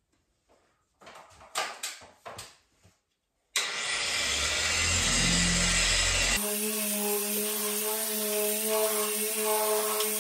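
A few light handling clicks, then a dual-action (random orbital) polisher starts about three and a half seconds in with a loud hiss. About three seconds later it changes abruptly to a steady, even hum as the foam pad buffs freshly colour-sanded clear coat on a car roof.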